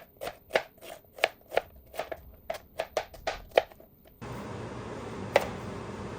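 Kitchen knife chopping on a cutting board in even strokes, about three a second, stopping abruptly about four seconds in. A steady hiss follows, with one knock.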